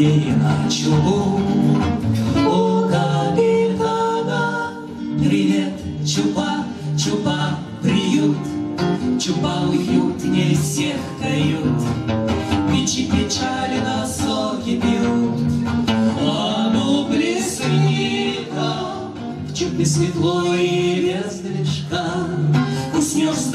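Acoustic guitar strummed in a steady rhythm under singing: a bard song performed live.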